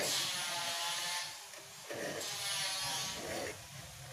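Flat steel file rasping across the teeth of a wood hand saw, sharpening them, in two long strokes of about a second each.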